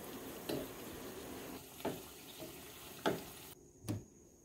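Battered potato slices deep-frying in hot oil in a frying pan, a steady sizzle with a few sharp clicks. The sizzle cuts off suddenly about three and a half seconds in.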